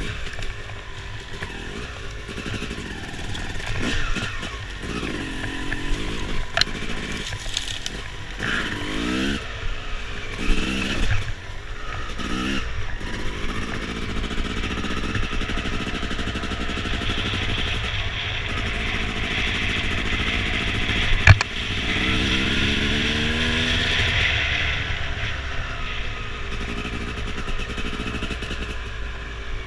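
Engine of an off-road vehicle revving up and down over and over as it is ridden hard over rough ground, with clatter from the ride. It climbs to a steadier, higher run past the middle, broken by one sharp knock.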